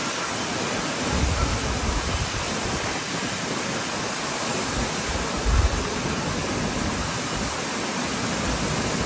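Heavy storm rain making a steady hiss, with wind gusting against the microphone in low rumbles about a second in and again about five and a half seconds in.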